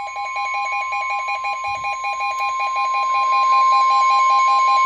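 NOAA Weather Radio 1050 Hz warning alarm tone: one steady, unbroken high tone announcing a warning. Over it a second, lower alarm beeps rapidly, about seven beeps a second, growing slightly louder past the middle.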